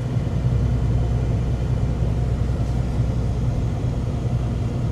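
Steady low road rumble and engine drone inside a moving vehicle on the highway.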